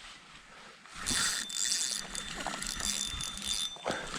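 Fishing reel clicking and whirring as line is reeled in, starting about a second in after a quiet moment.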